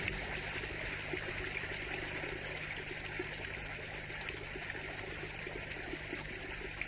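Shallow stream running over stones: a steady trickling babble of water.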